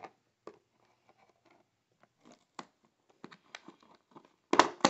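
Scissors and plastic toy packaging: small clicks and faint rustles as a doll accessory is cut free from its cardboard-and-plastic box, with one louder cut near the end.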